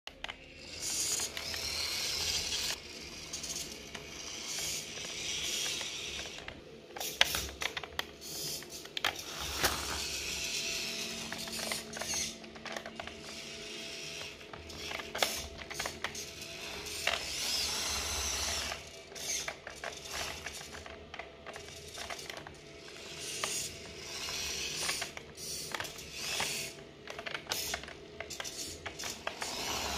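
Radio-controlled model tractor's small electric motors and gears whirring and clicking as it drags a soil implement through loose dirt. The whirring swells and fades as it drives, with irregular clicks and scraping.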